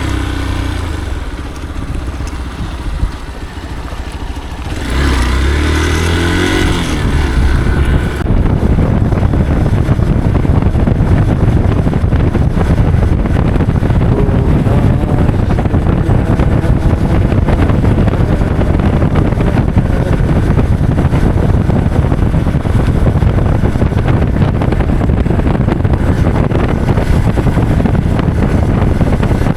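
Motorcycle engine running, revving briefly about five seconds in, then a louder, steady rushing noise of engine and wind from about eight seconds as the bike rides on.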